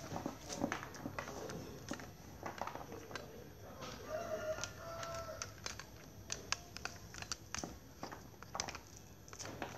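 Dried corn kernels being stripped off the cob by hand, clicking as they fall into a plastic bowl in quick irregular patters. A rooster crows once, about four seconds in.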